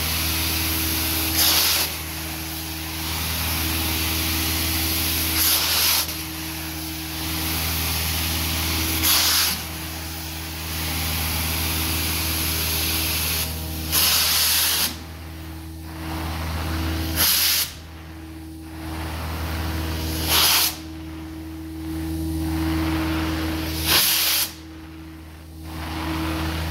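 Carpet extractor running steadily, a motor hum under a constant hiss of suction and spray, as the wand is worked across the carpet in strokes. A brief, louder rush of air comes about every three to four seconds, seven times.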